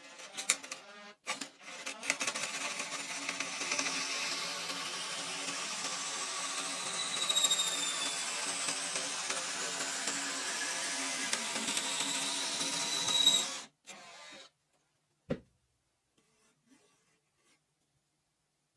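A power tool running steadily on wood for about twelve seconds after a few clicks, then stopping suddenly, followed by a single sharp knock.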